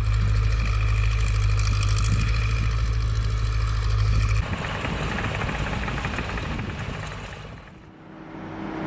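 A loud, steady low machine hum with a few faint steady whining tones above it, cutting off abruptly about four and a half seconds in. A noisier, less steady sound follows and fades near the end.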